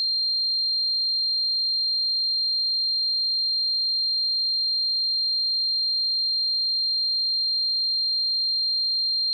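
Synthesized tinnitus tone: a single high-pitched pure tone held steady without any change, imitating the ringing in the ears of tinnitus.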